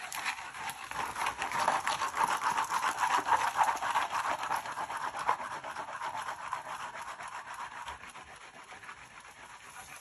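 Mini handheld vacuum cleaner running while its nozzle is rubbed quickly back and forth over carpet: a rough, fast-pulsing buzzing hiss that gets quieter over the last couple of seconds.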